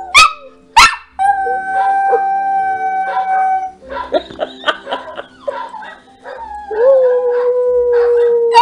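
A coonhound and a Chihuahua howling back and forth. Two sharp yips open it, then a long held howl, a stretch of short broken calls, and near the end a second long howl, lower in pitch.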